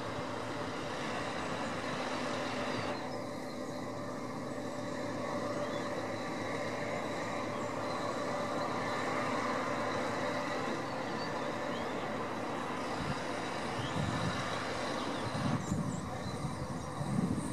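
Lorry-mounted crane at work lifting a motor cruiser: the truck's diesel engine running steadily to drive the crane, with a few low bumps near the end.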